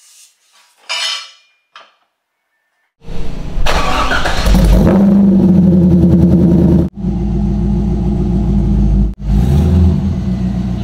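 After about three seconds of near quiet, a 1999 Corvette C5's LS1 V8 starts suddenly and revs, then runs loud and steady through its exhaust. It breaks off abruptly twice.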